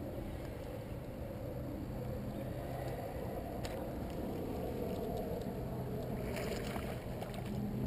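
Water washing against a sit-on-top fishing kayak's hull as it drifts or is paddled, a steady low rush with a faint low hum under it. There is a light knock about halfway through and a brief splashy rush near the end.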